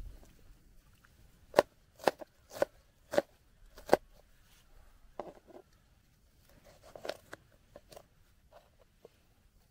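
Knife chopping a red onion on a plastic box: five sharp chops about half a second apart, then softer, scattered cuts.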